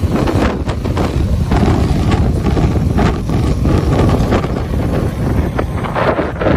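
Heavy wind buffeting the microphone over the engine and road noise of a moving vehicle, a loud steady rumble with irregular gusts.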